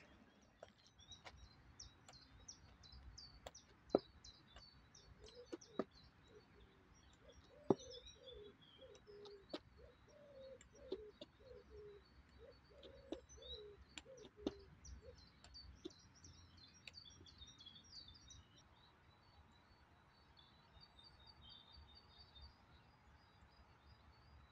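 Small birds chirping and singing, faint, with a run of lower repeated calls in the middle. Sharp knocks come now and then through the first fifteen seconds or so, from the tips of forearm crutches striking concrete steps.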